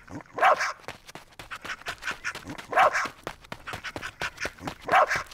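A dog barking three times, about two seconds apart.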